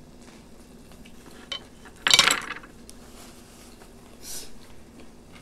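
Quiet table noises and faint clinks beside a pan of ramen cooking on a portable gas burner. About two seconds in there is one loud, half-second rush of noise, and a softer hiss comes a little after four seconds.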